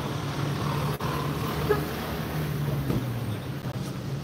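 Outdoor road traffic with a steady low engine hum and wind rushing on the microphone. A short high blip sounds about one and a half seconds in.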